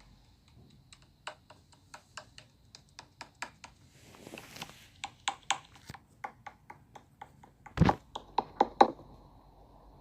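Slime being pressed and poked by hand, making a run of sharp clicks and pops about three or four a second, with a brief crackling stretch midway and a louder cluster of pops near the end.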